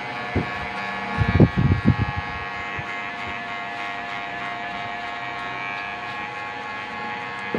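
Cordless electric hair clipper running with a steady buzz as it cuts hair held up on a comb, with a few short low knocks between about one and two seconds in.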